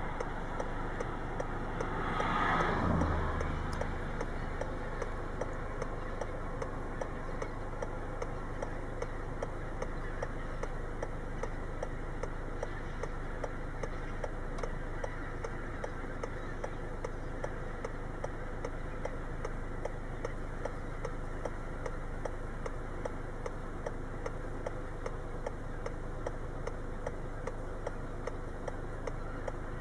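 Regular ticking, about two clicks a second, over a steady dense noise. About three seconds in there is a brief louder swell that ends in a low thump.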